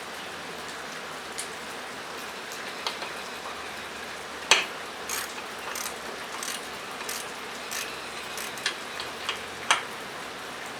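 Socket ratchet clicking in a series of short strokes, tightening a grease fitting into the frame, over steady rain drumming on a metal roof. The clicks start about halfway through and come roughly every half second to second.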